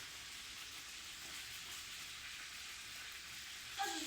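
Food frying in a cooking pot, a steady sizzle.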